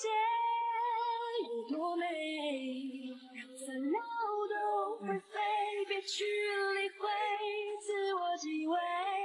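Background song: a high, woman's singing voice carrying a slow melody, holding long notes with vibrato, with only brief breaks between phrases.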